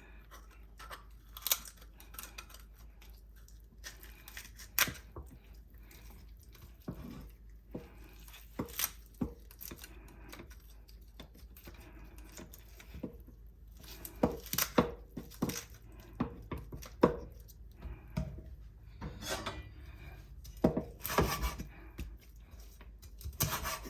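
Scattered clicks, knocks and rustles of kitchen handling: dishes, utensils and ingredients being moved about, with a few sharper knocks.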